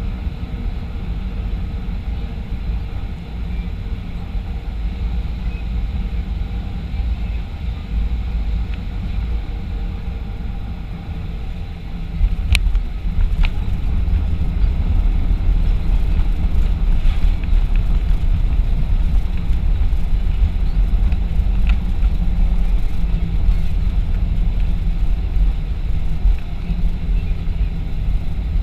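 Boeing 737-500 jet airliner noise: a steady low rumble of engines and rushing air. About twelve seconds in there is a sharp click, after which the rumble grows stronger and a little louder, with a few more light clicks.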